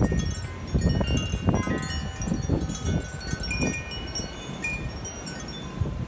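Wind chimes ringing irregularly in gusting storm wind, many overlapping notes at different pitches, with the wind buffeting the microphone in repeated low rumbling gusts.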